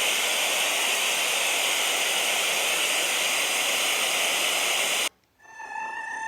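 Electronic sound effect from a vocoder sound-effects device: a steady synthesized hiss that cuts off suddenly about five seconds in. After a brief pause, a steady electronic tone begins near the end.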